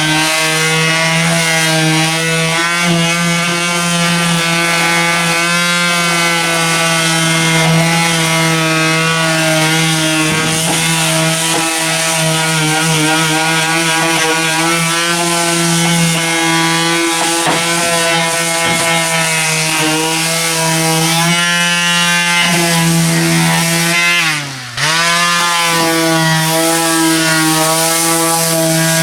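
Electric power sander running steadily at speed with a constant whine. About 24 seconds in it briefly winds down with a falling pitch, then spins back up.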